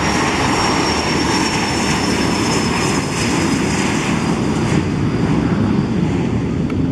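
Cessna Citation III's twin Garrett TFE731 turbofans at takeoff power: a loud low rumble with a thin high whine that slowly falls in pitch.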